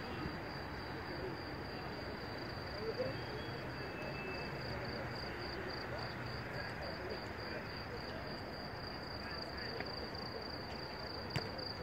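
Crickets chirring in a steady, high, pulsing chorus over a background murmur of distant voices.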